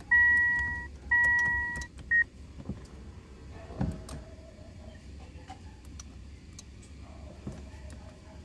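Toyota Camry's electronic warning buzzer beeping twice in long steady tones, then once briefly, followed by a few faint clicks and knocks.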